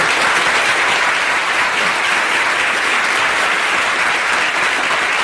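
Television studio audience applauding, a steady, even clapping that holds at full strength.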